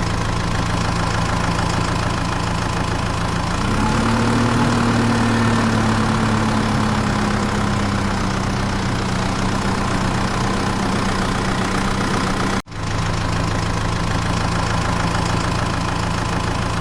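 A motor running steadily with a low hum. Its pitch rises a little about three and a half seconds in, then settles.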